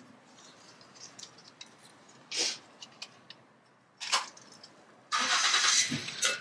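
Rustling and scraping of potting soil and plants being worked into a planter: scattered small clicks and rustles, two short scrapes, then a louder rough rustling scrape lasting about a second near the end.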